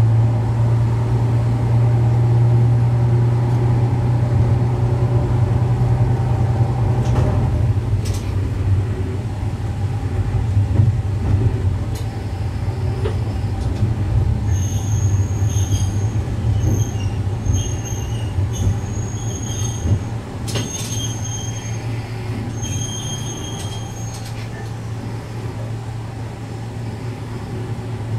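Diesel railcar heard from its cab: a strong low engine drone eases off after about seven seconds. From about halfway, short high-pitched wheel squeals come and go as the car rolls through the yard's points.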